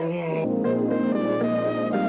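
Sitcom scene-transition music: sustained chords over a steady bass note, with the chord shifting about half a second in.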